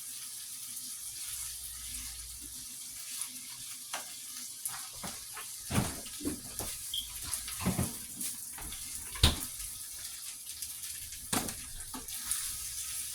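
Shrimp, rice and butter frying in a pan with a steady sizzle, while a cooking utensil stirs the food and knocks and scrapes against the pan several times. The loudest knock comes about nine seconds in.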